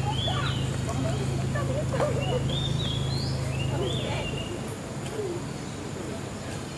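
Birds calling with repeated short chirping notes, over faint distant voices and a low steady hum that stops about two-thirds of the way through.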